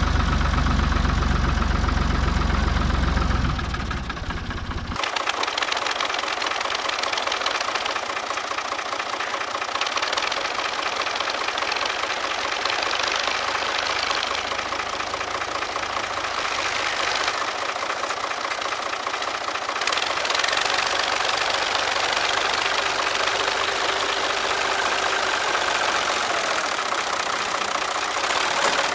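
A 1966 Ford 4000 tractor's three-cylinder engine idling after a cold start. It is heard close up at first, with a heavy low rumble. About five seconds in, this changes abruptly to a lighter, more distant sound of tractor engines running.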